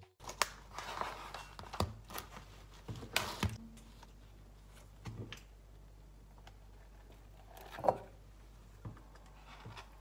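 Scattered clicks, taps and short rustles of small objects being handled, over a faint steady low hum. The loudest is a sharp click about eight seconds in.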